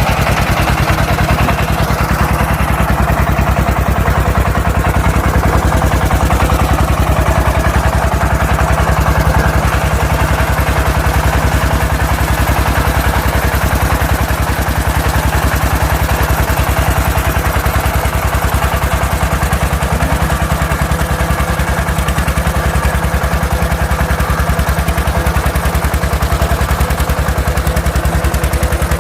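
Tractor engine running steadily with a fast, even chugging and some clatter, holding a constant speed throughout.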